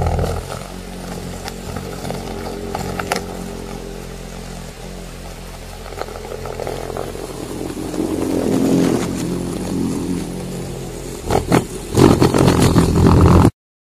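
Low, steady mechanical drone with several hum tones and scattered sharp clicks, presented as a rock drill working underground in a tunnel. It swells about two-thirds of the way in, surges louder near the end, then cuts off suddenly.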